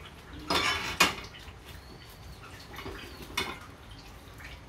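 Dishes and kitchen utensils clinking and knocking as they are handled. A cluster of sharp clinks comes between about half a second and a second in, and a few lighter knocks follow later.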